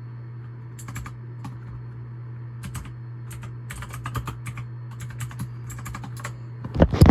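Computer keyboard typing: irregular clusters of key clicks, with a heavier knock near the end, over a steady low hum.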